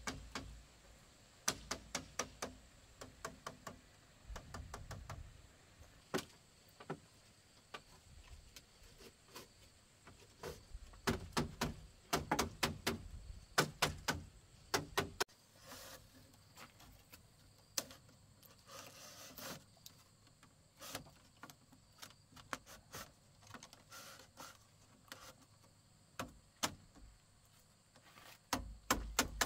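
Irregular sharp knocks and clicks, some in quick runs of several a second and others spaced out, with pauses between and a low rumble under some of the runs.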